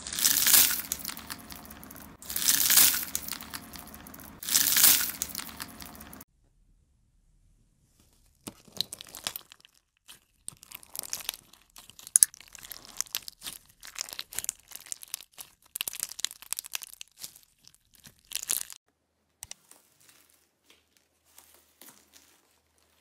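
A hand pressing into a bowl of foam beads, three loud crunching presses about two seconds apart. After a short silence comes about ten seconds of scattered crackling and clicking as clear red slime full of beads is worked, then a few faint squishes of green slime near the end.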